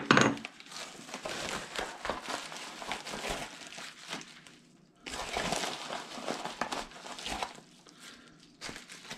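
Packing material crinkling as it is handled in an opened box, in two stretches of crackly rustle with a short pause about five seconds in.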